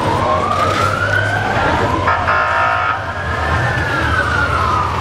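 Ambulance siren wailing in slow rises and falls, with a short steady blare about two seconds in and a vehicle engine rumbling underneath.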